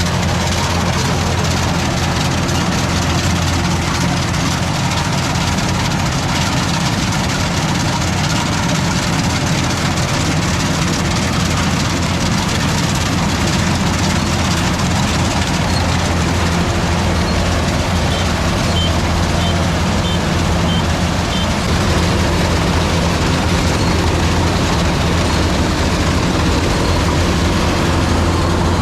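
A heavy engine running steadily at an even pace, with no change in speed.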